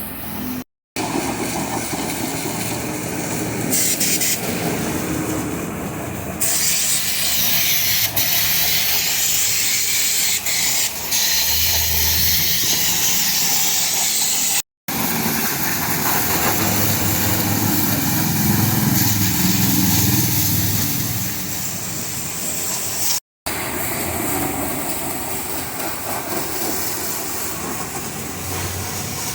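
High-pressure water jet spraying a backhoe loader, a steady hiss with a low hum beneath it; the sound drops out briefly three times.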